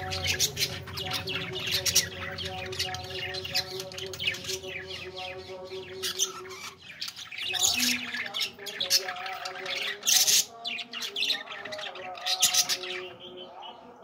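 Pet budgerigars chattering with rapid chirps and squawks, with louder bursts about two, eight, ten and twelve and a half seconds in, over a steady low hum.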